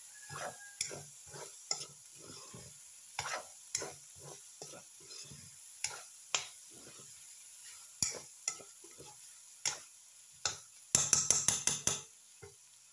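Metal spatula stirring and scraping diced pork frying in a nonstick wok, in repeated irregular strokes over a light sizzle. Near the end comes a quick run of sharp metal clacks against the pan, the loudest sound.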